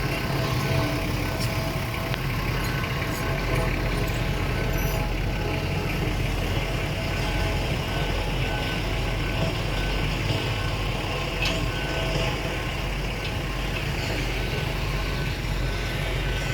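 Diesel engine of a smooth-drum road roller running steadily while the machine vibrates and compacts hardcore, a constant low rumble. A faint short beep repeats evenly, about one and a half times a second.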